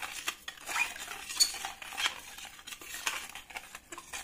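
Metal kitchen tongs stirring sugar water in a plastic bowl to dissolve the brown sugar, with irregular light clicks and clinks of the metal against the bowl.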